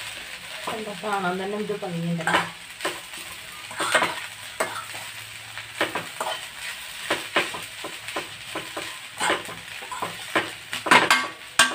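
Drumstick (moringa) leaves stir-fried in a kadai: stirring strokes scrape and tap against the pan in irregular scrapes and clicks over a light sizzle, the loudest cluster near the end.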